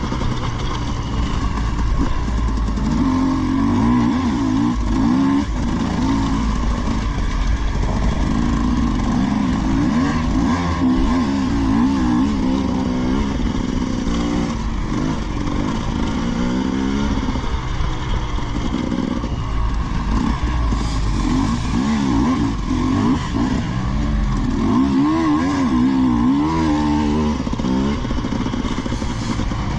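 Off-road motorcycle engine running under constant throttle changes: its note rises and falls again and again as it is ridden over rough ground, with a heavy low rumble.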